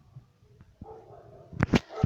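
Stomach gurgling: after a brief lull, a faint rumbling gurgle, then two sharp squelching pops near the end.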